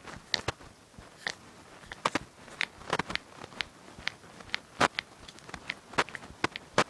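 Finger knuckles being cracked over and over: an irregular run of sharp pops, about two or three a second, some in quick pairs.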